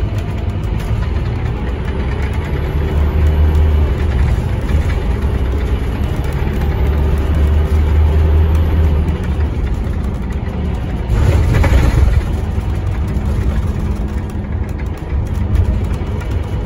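Scania K230UB city bus under way, heard from inside the cabin: a steady low diesel engine rumble with its ZF Ecomat automatic gearbox, swelling louder for several seconds as the bus pulls along, then easing. A short hiss of noise about eleven seconds in.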